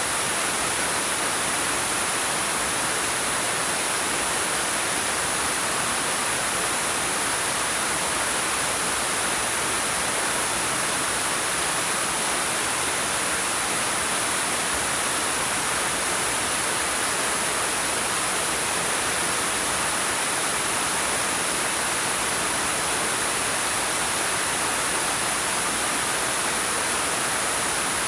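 Waterfall pouring over rocks: a steady, unbroken rush of water.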